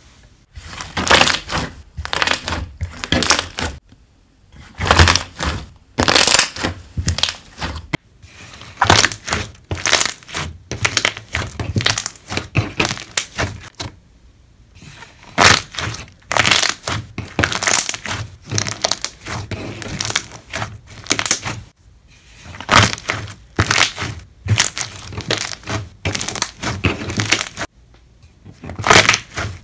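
Pink slime full of trapped air bubbles being pressed and squeezed by hand, the bubbles popping and crackling in quick clusters, with short pauses between presses.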